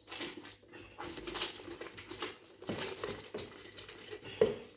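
A grapefruit half being twisted and pressed down on a plastic hand citrus reamer: irregular wet squishing and the peel rubbing on the plastic, with one sharper knock near the end.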